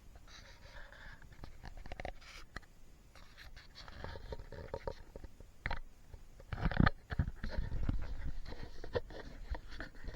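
A small animal eating nuts: irregular crunching, gnawing and scratching noises, with a louder flurry about seven seconds in.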